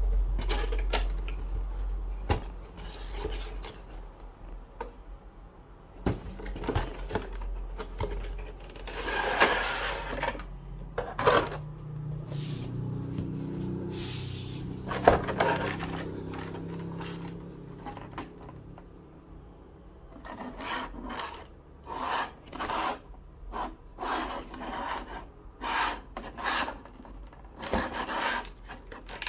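Cardboard box and plastic packaging being handled and opened by hand: a series of short rubbing, scraping and rustling sounds, coming in quicker succession near the end.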